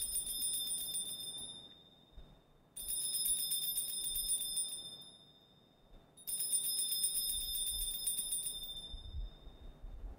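Altar bells shaken three times as the consecrated chalice is elevated at Mass, each peal a rapid jingling of small bells that lasts two to three seconds and dies away.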